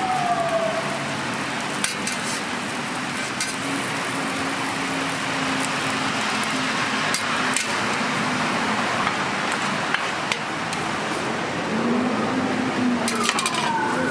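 Ham, egg and toast sizzling on a flat steel griddle, with a few sharp clicks and scrapes of a metal spatula on the plate. A falling tone sounds near the start and again near the end.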